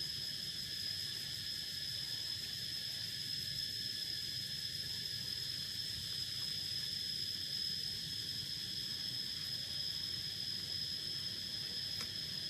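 Steady high-pitched insect chorus trilling without a break, over a faint low background hiss.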